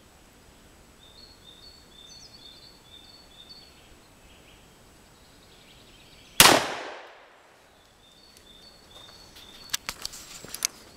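A single .45 ACP shot from a Smith & Wesson Model 1917 revolver about six seconds in, a sharp crack that dies away over about a second. Birds chirp in the background, and a few sharp clicks come near the end as the revolver is handled.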